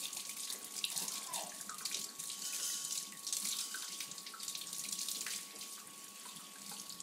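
Kitchen faucet running steadily into a sink, the stream splashing over a carrot being rinsed under it.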